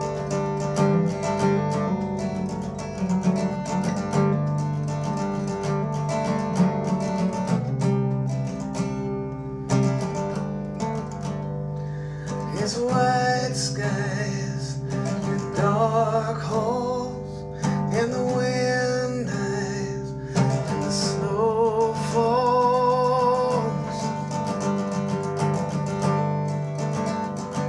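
Acoustic guitar playing a folk song, joined about twelve seconds in by a man's singing voice that carries on for roughly ten seconds over the guitar.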